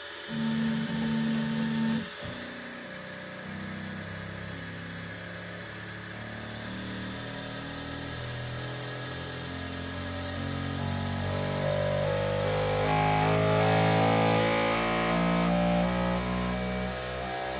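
Bambu Lab X1 Carbon 3D printer's stepper motors sounding a string of held tones that change pitch every half second or so, typical of the printer's start-up motor and vibration calibration. A louder tone comes near the start, and the tones climb higher and grow louder toward the end.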